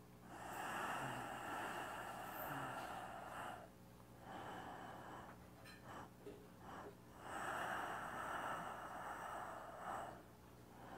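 A man breathing slowly and deeply: two long breaths of about three seconds each, several seconds apart, with faint clicks between them. This is the paced inhale-and-exhale breathing of a qigong movement.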